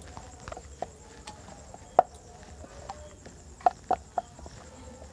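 Wooden rolling pin rolling out dough on a round wooden board, giving irregular wooden clacks and knocks, the loudest about two seconds in and a quick pair near the end.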